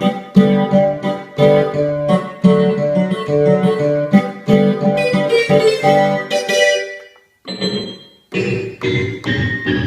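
Korg Krome synthesizer workstation playing Korg M1 sounds: a rhythmic run of chords with a plucked, guitar-like tone that stops about seven seconds in, then a different keyboard sound starts up.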